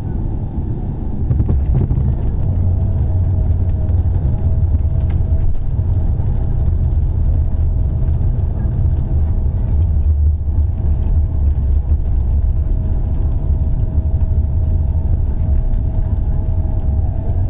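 Cabin noise inside a Boeing 767-400 rolling on the ground after landing: a loud, steady low rumble from the engines and the wheels on the pavement, with a thin steady whine above it.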